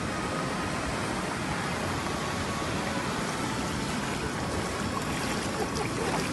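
Muddy floodwater rushing and churning in a steady, noisy wash.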